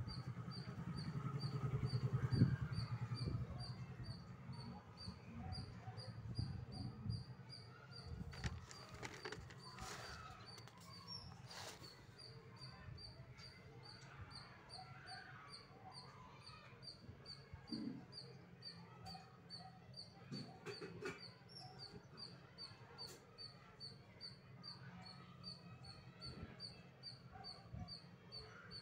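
Short high-pitched chirps repeating steadily, about three a second, over a low steady hum, with a louder low rumble in the first few seconds.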